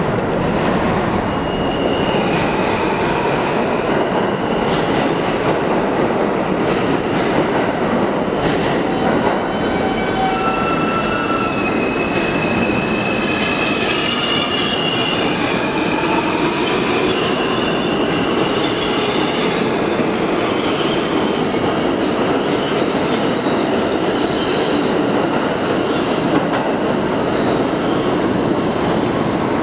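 A New York City Subway R160 train running along the tracks through a station, with a steady loud rumble of wheels on rail. The wheels squeal in thin high tones now and then, most of all around the middle.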